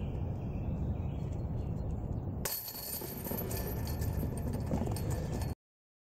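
Low wind rumble, then from about halfway the steel chains of a disc golf basket jingling and clinking as a disc is pulled out of them; the sound cuts off suddenly near the end.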